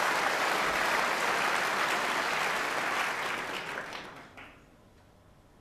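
Audience applauding steadily, then dying away about four seconds in. A faint click follows.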